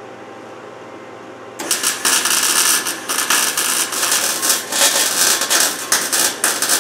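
Electric arc welding on the truck's steel frame horns, starting about a second and a half in: a steady crackling sizzle from the arc, with quick flickers in level, over a low shop hum.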